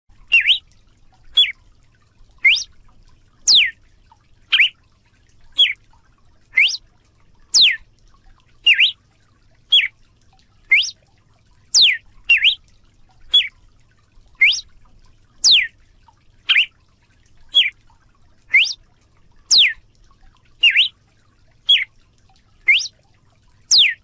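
Paroaria cardinal (galo-de-campina) singing: a steady series of short, clear whistled notes, about one a second, alternating rising and falling slurs.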